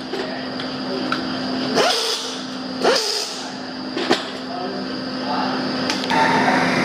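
Engine assembly-line workshop noise: a steady machine hum, with three sharp metallic clinks about a second apart as metal parts are handled. The background grows louder and busier near the end.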